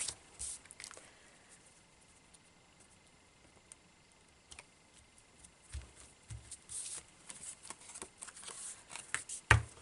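Faint handling of paper and cardstock: a few soft taps, a quiet pause, then scattered rustles and taps as a card panel is pressed onto its mat and picked up, with one sharper click near the end.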